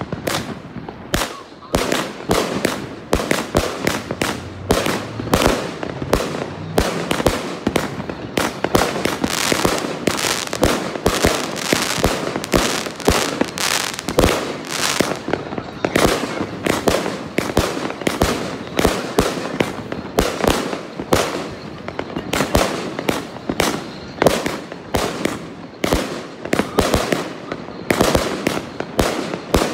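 A 100-shot consumer firework cake firing off in a continuous, uneven string of sharp bangs, about two or three a second, as its shots launch and burst into stars overhead.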